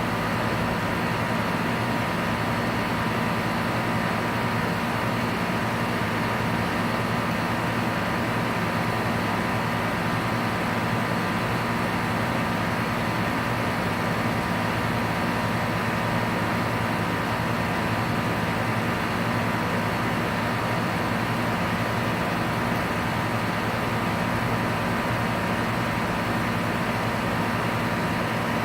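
Outdoor compressor unit running steadily: a constant low hum with a faint high tone over an even rushing noise.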